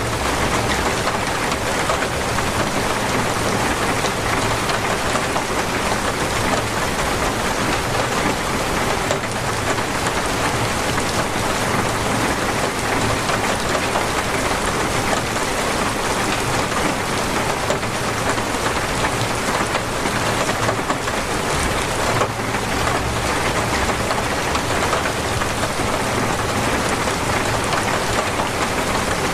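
Torrential rain falling steadily, a dense, even hiss of pouring rain without let-up.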